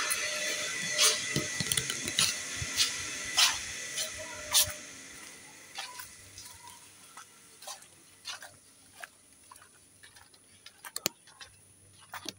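Water pouring and splashing over a person bathing under a pipe, with irregular splashes, for about the first five seconds. Then the pour fades away, leaving scattered drips.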